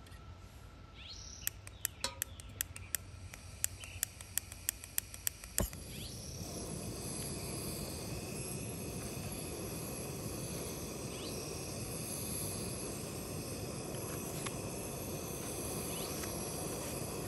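Piezo igniter of a remote-canister gas camp stove clicking about a dozen times over some four seconds until the burner lights. The burner then runs with a steady hiss under the pot.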